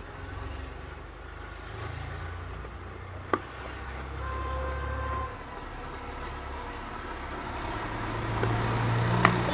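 A motor vehicle engine running with a low steady hum that grows louder toward the end, with one sharp click about three seconds in.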